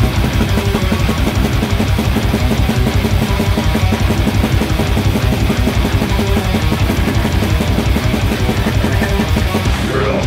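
Doom metal band playing live: heavily distorted electric guitar and bass over a full drum kit, dense and loud.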